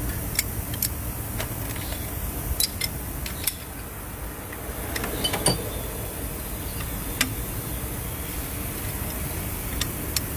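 Socket and steel breaker bar clinking on cylinder-head bolts as they are fitted and turned the final 90-degree angle step of head-bolt tightening: about nine short, sharp metal clicks at uneven intervals, the loudest about halfway through, over a steady low rumble.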